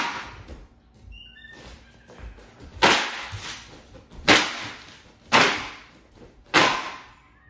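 A fabric folding fan flicked open, each flick a sharp snap with a short tail after it: one right at the start, then four more about a second apart from about three seconds in.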